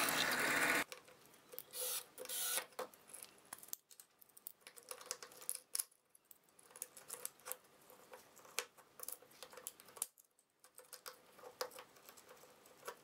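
A drill press boring through a glued wooden pulley wheel stops about a second in. After that come scattered light clicks and knocks as the wooden wheels, steel washers and steel rod of a pulley are fitted together by hand.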